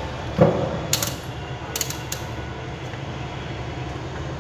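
A multimeter and its test leads being handled: a knock about half a second in, then a few sharp clicks around one and two seconds in, over a steady low hum.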